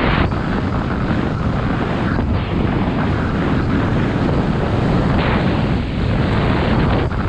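Wind buffeting the microphone and mountain bike tyres rumbling over loose gravel at speed, a loud steady noise heaviest in the low end.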